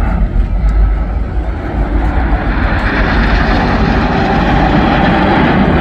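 Red Arrows BAE Hawk T1 jets flying past in a five-ship formation: a steady jet roar that grows louder from about two seconds in.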